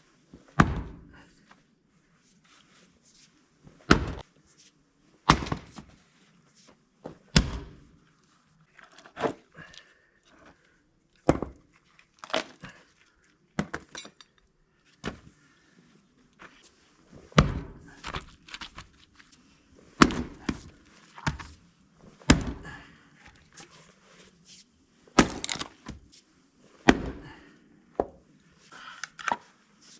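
Firewood being handled: a series of sharp wooden knocks and thunks, one every one to three seconds, with no saw running.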